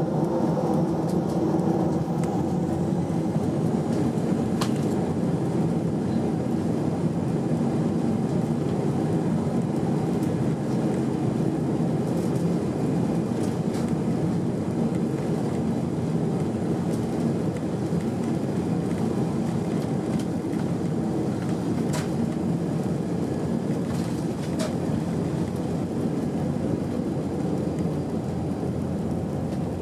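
Airbus A319 cabin noise during the takeoff roll: the engines at takeoff thrust and the undercarriage rumbling along the runway, with a few sharp knocks.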